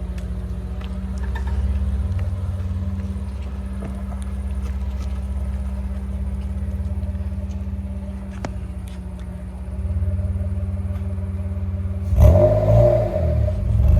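Mitsubishi FTO GPvR's 2.0-litre 6A12 MIVEC V6 idling steadily through a loud exhaust, then revved sharply about twelve seconds in.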